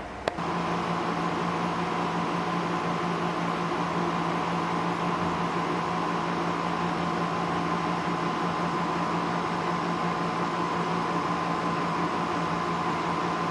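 Nakatomi MAC-20 portable air conditioner running steadily: an even fan rush with a steady low hum and a fainter higher tone. A sharp click just before the sound comes in, about half a second in.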